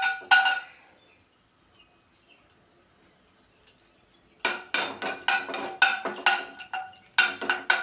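Two ringing clinks near the start as cashews are tipped off a plate into a non-stick kadai, then, about halfway through, a spoon knocking and scraping rapidly against the pan while stirring cashews frying in ghee.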